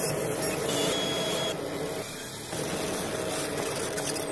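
Logo-intro sound effect: a steady machine-like hum under a dense hiss, with a brief high whine about a second in and a dip in level around two seconds in.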